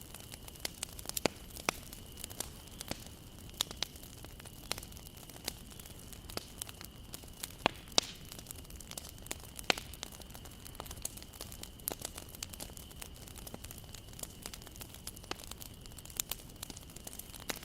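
Wood fire crackling: irregular sharp pops and snaps, several a second at times, over a soft steady hiss, with a faint thin high whine underneath throughout.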